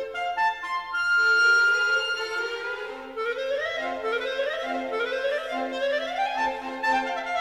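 Solo clarinet in a classical clarinet concerto: a few short notes climbing, a long held high note about a second in, then fast scale runs sweeping up and down over low sustained notes.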